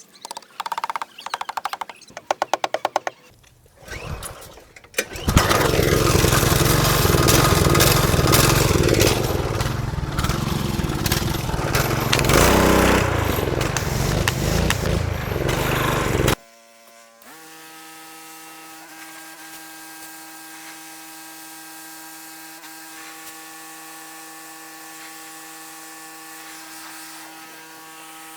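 Pressure washer running and spraying, a loud steady rush for about eleven seconds that stops abruptly, as algae is washed off a Jandy pool filter cartridge. It is followed by a quieter steady machine hum made of several fixed tones.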